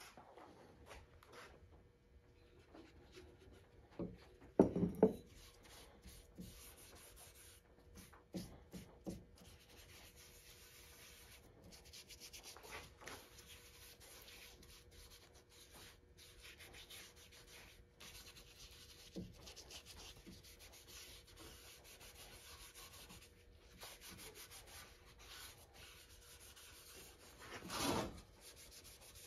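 Cloth rubbing oil into the wooden handle of an antique crosscut saw in quick repeated strokes. A few knocks about four to five seconds in and a louder scrape near the end come from handling things on the bench.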